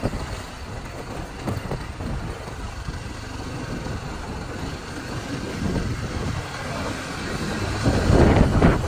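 Low, steady rumble of a moving road vehicle, with wind and road noise. It grows louder near the end.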